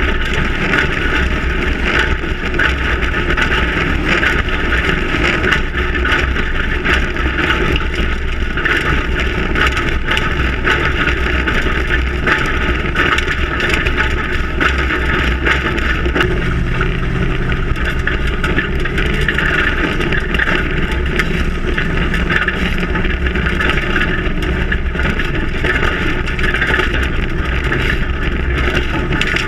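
Ford Raptor prerunner driving on a desert dirt track, heard from a camera mounted on the truck: its engine runs steadily under continuous road and wind noise. A low engine note becomes clearer about halfway through.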